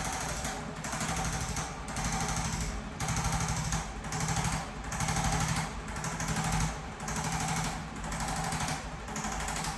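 Handheld chiropractic impulse adjusting gun firing rapid trains of light taps. The trains come in short bursts of under a second, repeated about once a second.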